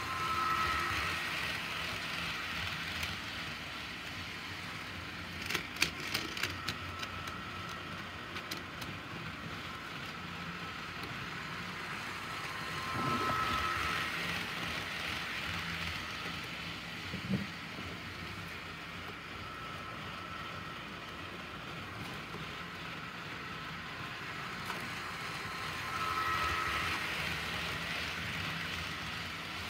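HO scale model train running around a loop of track: the locomotive's small electric motor whines and the wheels clatter on the rails. The sound swells each time the train passes close, about every thirteen seconds, with a quick run of clicks about six seconds in.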